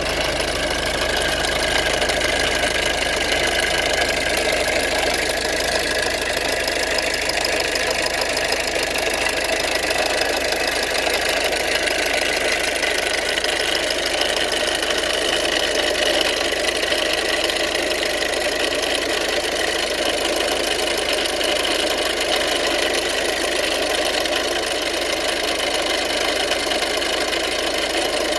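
Ford 1.6 TDCi four-cylinder common-rail diesel engine running steadily with a rattling noise.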